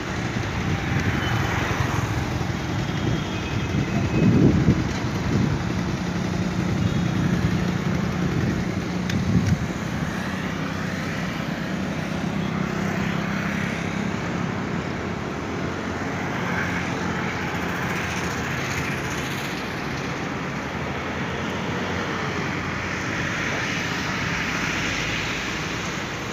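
Road traffic: cars and motorbikes passing on a city road, with one engine humming steadily for several seconds and a couple of brief louder bumps early on.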